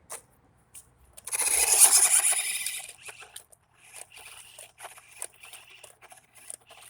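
Small electric RC car driving over gravel, its tyres scraping and throwing stones, with one loud rough scrape lasting about a second and a half, then lighter scrapes and clicks over a faint steady motor whine.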